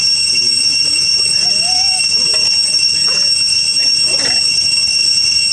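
Steady, high-pitched insect chorus droning on several fixed pitches, with a few faint short voice-like calls rising and falling under it.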